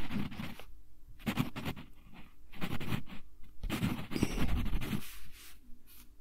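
Wooden pencil writing on a sheet of lined paper: scratchy strokes of the lead across the paper in short spurts, with brief pauses between words.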